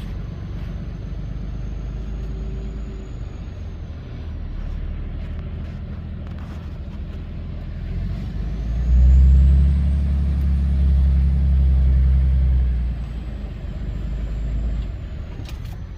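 Log truck's diesel engine running, pulling harder for a few seconds about halfway through before easing off again, with a faint high whine that rises as it pulls.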